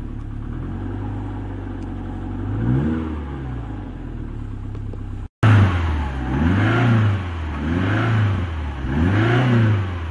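Subaru EJ25 2.5-litre flat-four engine, just fitted in a VW T3 van, running on its first start-up. It idles steadily with one brief rev about a third of the way in, then is blipped by hand three times in quick succession near the end, each rev rising and falling.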